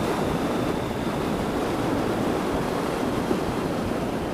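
Steady wind rush over the microphone of a motorcycle on the move, with the bike's running and road noise underneath.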